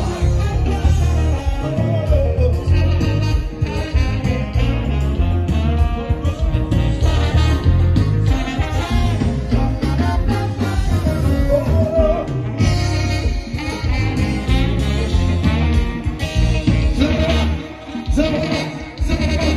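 Loud dance music with a heavy, pulsing bass beat and a singing voice, played over a DJ's sound system; the level dips briefly near the end.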